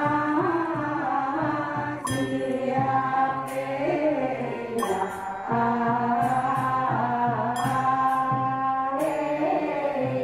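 A group of women chanting in unison from chant books, holding long steady notes, with a sharp struck sound every one to three seconds.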